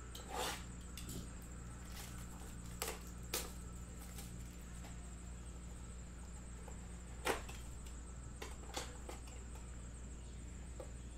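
Cardboard trading-card boxes being handled on a table: a handful of separate short taps and scrapes, over a steady low hum.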